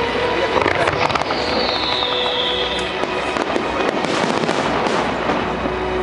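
Fireworks display with dense crackling and bangs, and a falling whistle about a second in. Music plays faintly underneath.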